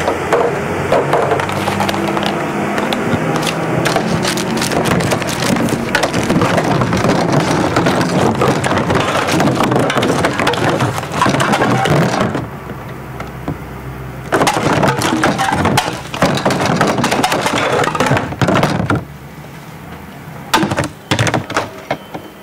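Dense crackling and crushing of waste packaging in two long stretches, broken by a short lull about halfway, then a few scattered knocks near the end. A low steady engine hum from a garbage truck runs under the first half.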